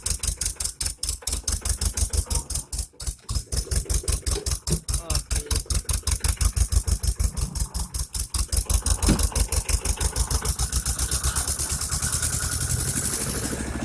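A tractor's diesel engine chugging with a steady rapid thump, about eight beats a second, turning smoother and steadier in the last few seconds.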